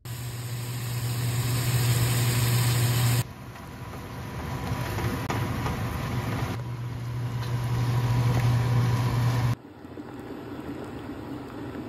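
A machine running steadily, with a constant low hum under a broad rushing noise, in several short clips that change abruptly about every three seconds.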